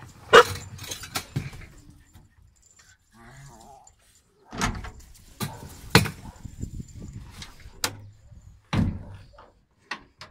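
Plastic pet carriers with wire doors being handled in a pickup's load bed: a series of sharp knocks, bangs and rattles.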